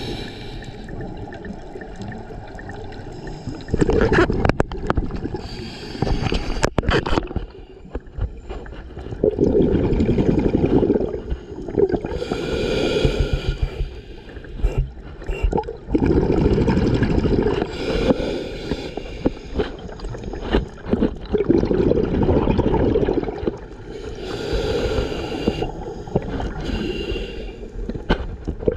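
Scuba diver breathing underwater through an open-circuit regulator: a short hissing inhale every several seconds, each followed by a long bubbling rumble of exhaled gas. A few sharp clicks of gear sound about four to seven seconds in.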